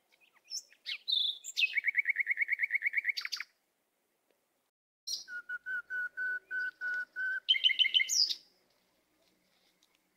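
A songbird singing two phrases: a fast trill of about ten notes a second, a pause, then a slower series of about four clear notes a second that ends in a quick, higher flourish.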